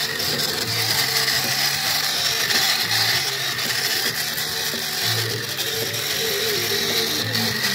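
Toy monster truck's small electric motor and plastic gearbox whirring steadily as it drives over loose dirt.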